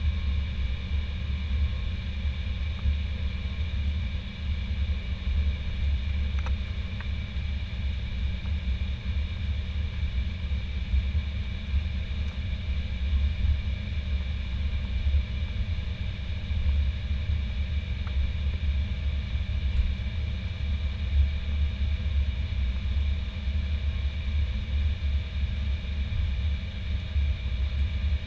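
Airbus A320 cabin noise while taxiing, its jet engines at low thrust: a steady low rumble with a constant high whine.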